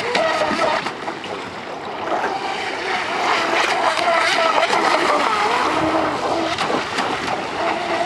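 Brushless electric RC speedboat running fast across the water, its motor whine wavering up and down in pitch with the throttle over the hiss of its spray. It drops briefly about a second in, then picks up again.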